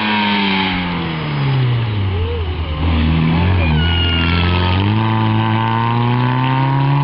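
Small historic rally hatchback, a Fiat 127, slowing for a tight bend: the engine's revs fall, stay low and uneven through the turn, then climb steadily from about five seconds in as it accelerates away.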